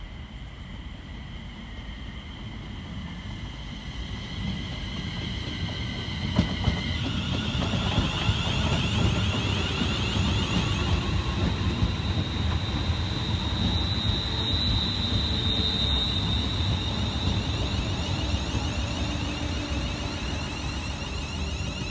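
Class 350 electric multiple unit arriving, a low running rumble that grows louder over the first several seconds and then holds steady. High electric whining tones sound throughout and shift to a wavering whine about seven seconds in.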